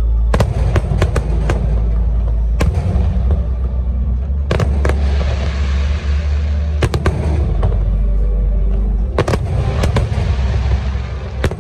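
Aerial fireworks going off: a continuous low booming rumble, broken by clusters of sharp cracks about every two seconds.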